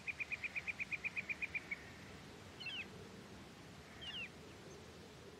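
Forest wildlife ambience: a rapid pulsed chirping trill, about nine chirps a second, stops about two seconds in, followed by two short sweeping bird-like calls.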